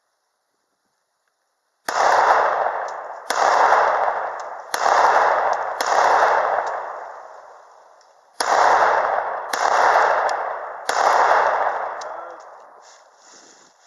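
Glock 19 9mm pistol fired seven times: four shots a little over a second apart, a pause of about two and a half seconds, then three more. Each shot rings out with a long echoing tail.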